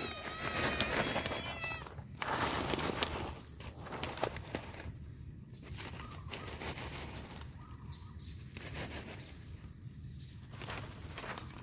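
Stray cat meowing, a drawn-out, wavering call lasting about two seconds, followed by a burst of rustling and then softer scattered rustling and shuffling.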